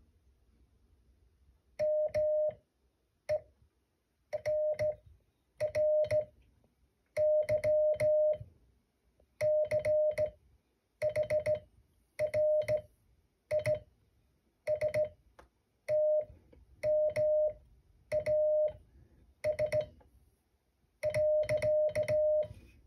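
Morse code sent by hand on a ham radio: a steady mid-pitched sidetone keyed on and off in dots and dashes, spelling out MERRY CHRISTMAS letter by letter. Clicks from the key come with each element.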